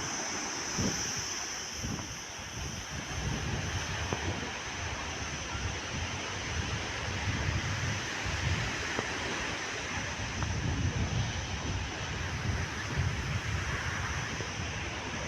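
Wind buffeting the microphone in uneven gusts over a steady rush of sea surf.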